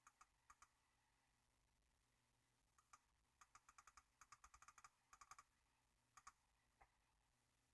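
Faint clicking of a computer keyboard: a few single clicks at the start, a quick run of typing in the middle, then two more single clicks near the end.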